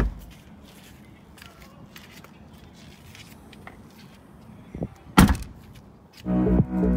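A car door slamming shut about five seconds in, with a lighter knock just before it and another thud right at the start. Electronic music with a steady beat comes in near the end.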